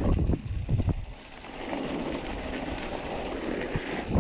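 Mountain bike rolling fast down a loose gravel trail: tyre noise on the gravel and wind on the handlebar camera's microphone, with a few low knocks from bumps in the first second and another near the end.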